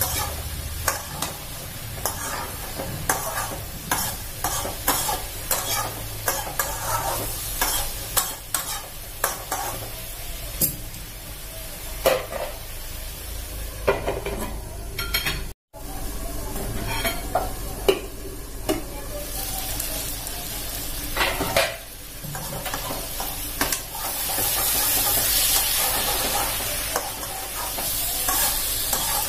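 A spatula scraping and knocking against a kadai while it stirs chopped banana stem and potato frying in the pan, with a steady sizzle underneath. The sound drops out briefly about halfway, and near the end the sizzle turns into a louder, steady hiss.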